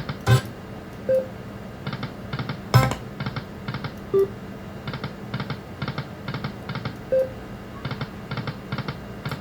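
Lightning Link video slot machine spinning: rapid rows of electronic reel ticks in repeated clusters, with a few short chime tones. Two sharp knocks, one shortly after the start and one about three seconds in.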